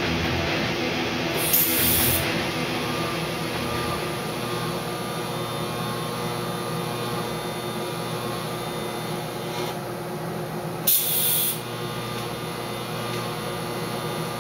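TIG welding arc buzzing steadily from a Miller Syncrowave 250 as cast iron is welded with stainless filler rod. Two short hissing bursts come through, one near the start and one about three-quarters of the way through.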